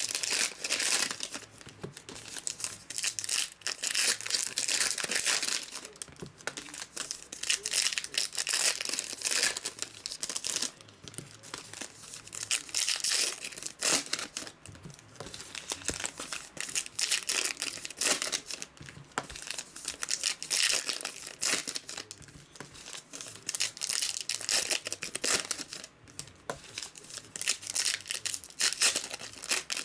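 Foil trading-card pack wrappers crinkling and tearing open in the hands, in irregular bursts over and over.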